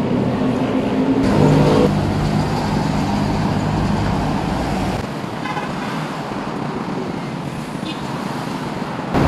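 Road traffic on a busy multi-lane avenue: a steady rush of passing vehicles, with a brief steady tone about a second and a half in. It gets a little quieter about five seconds in.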